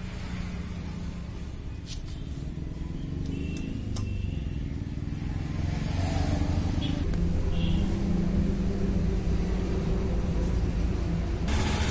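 A steady engine rumble that grows louder about halfway through, with a few light metal clicks from a wrench working on the motorcycle's engine casing. Near the end a steady rushing noise sets in suddenly.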